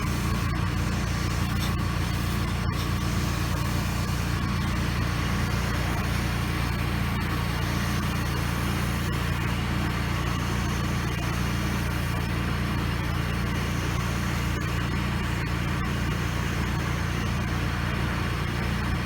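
Gas-engine pressure washer running steadily, with the even hiss of cleaner solution spraying from the wand's soft-wash tip onto the siding.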